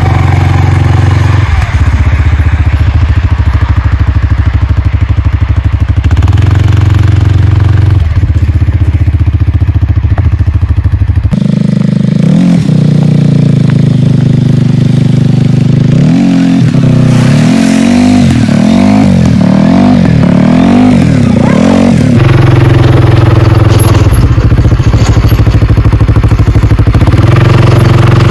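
2020 CFMOTO CForce 450L ATV's single-cylinder engine running loud and steady, then revving up and down over and over for about ten seconds in the middle as the machine pushes snow back and forth with its plow blade, then settling back to a steady speed.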